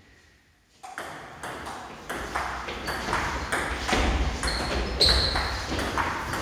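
Table tennis rally: the plastic ball clicking sharply back and forth off paddles and table, about three hits a second, starting about a second in. A few short squeaks of shoes on the floor and low footfalls go with it.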